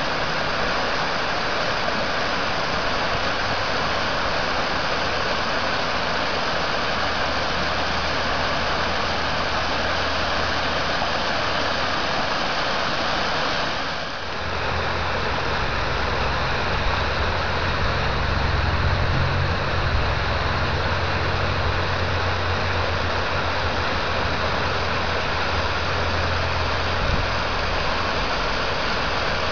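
River water rushing steadily over and through the broken rubble of a partly demolished low dam. A low steady rumble runs underneath and grows stronger after a short dip about halfway through.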